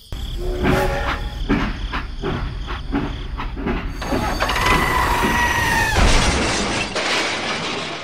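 Train sound effects: wheels clattering over rail joints at a steady rhythm, then a steady two-note horn blast for about a second and a half, then a loud crash that fades out, as the train hits the tractor.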